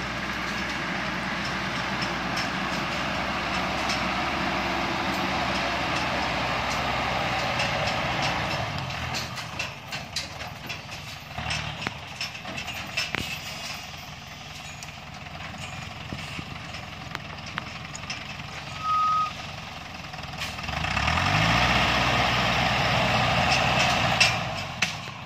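A light truck's diesel engine pulling hard up a steep dirt slope, then easing off to a lower, quieter run with scattered knocks and crunches of stones under the tyres. A single short electronic beep sounds about three-quarters of the way through. Then the engine revs up, rising in pitch, and pulls loudly again before dropping back near the end.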